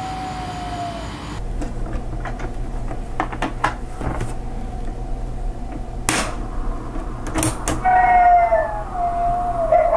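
Recorded coyote howls from a coyote locator cassette played on a 1970s Johnny Stewart game caller through a loudspeaker: one howl trails off in the first second, and a louder, wavering howl starts about two seconds before the end. In between come scattered sharp clicks and knocks.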